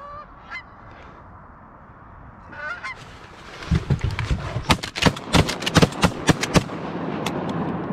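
A flock of geese honking as they come in, then a rapid volley of shotgun blasts from several guns, a dozen or so shots over about three seconds, with the geese still honking.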